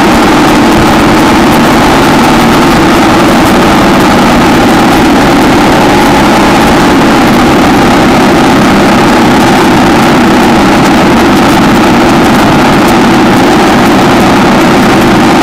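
1960 AJS 650 parallel-twin motorcycle engine running under way at steady revs, its note holding constant without rising or falling.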